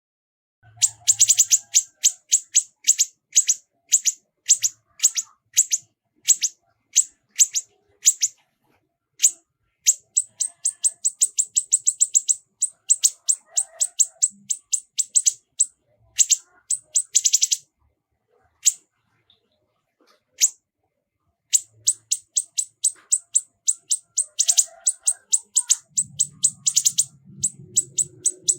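Songbird giving runs of short, sharp, high 'tembakan' (shot) notes: some spaced about three a second, others in fast rattling bursts, with a pause of a few seconds about two-thirds through. This is masteran song, used to teach competition songbirds.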